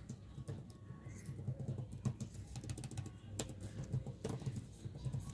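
Computer keyboard typing: irregular clicks of keys over a low background hum.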